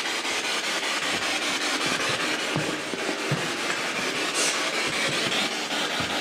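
Ghost-hunting spirit box scanning through radio stations, giving a steady hiss of radio static.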